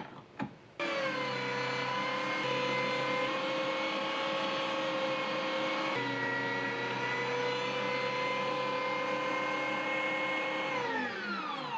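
Electric meat grinder switched on about a second in after a couple of light clicks, running with a steady hum as it grinds lemongrass and shallots through a fine 3 mm plate. Near the end it is switched off and winds down, its pitch falling.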